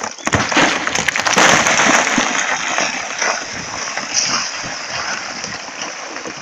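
Rockfall: a loose rock block crashing down a cliff face and shattering into smaller pieces on impact, the rubble clattering down the scree. Sharp knocks at first, loudest a second or two in, then a slowly fading clatter.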